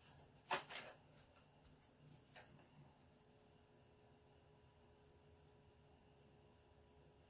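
Near silence, broken by a sharp tap about half a second in. A few faint ticks follow over the next two seconds as a fine paintbrush dabs strokes onto watercolor paper, then a faint steady hum.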